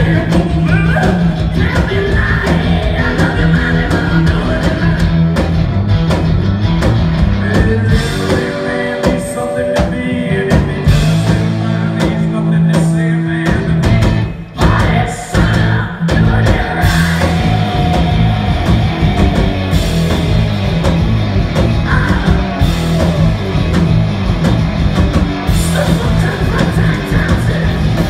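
Live rock band at full volume: two amplified guitars and a drum kit, with a rough, shouted lead vocal at times. The band stops short for a moment about halfway through, then comes crashing back in.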